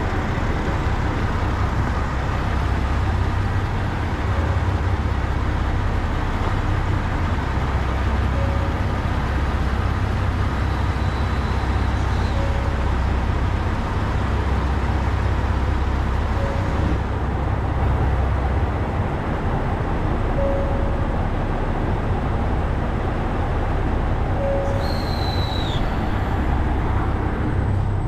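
Diesel railcar engine idling steadily while the train stands at a platform, a constant low rumble, with a faint short tone repeating about every four seconds.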